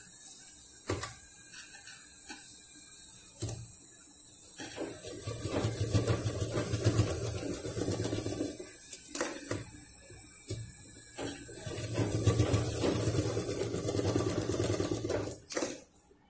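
Sewing machine stitching a seam through the pouch's fabric layers in two runs of a few seconds each, with a few sharp clicks between as the fabric is positioned.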